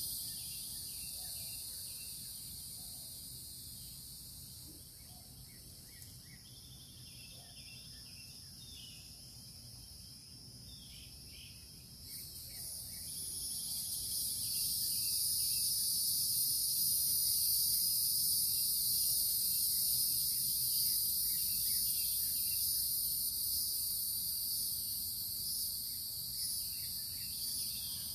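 Chorus of insects trilling, a steady high-pitched buzz that swells louder about halfway through and stays up, with faint scattered bird chirps beneath it.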